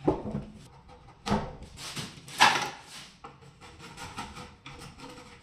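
Sharp knocks and handling noise from a laminate-faced plywood cabinet shutter being worked on a bench, three of them, the loudest a little past halfway. These are followed by lighter scraping strokes as a cutter trims the laminate along the shutter's edge.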